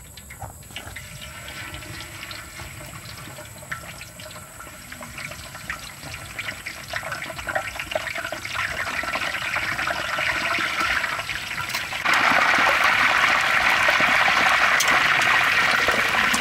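Whole chickens deep-frying in a large wok of hot oil, the oil sizzling and bubbling. The sizzle grows steadily louder and jumps suddenly louder about twelve seconds in.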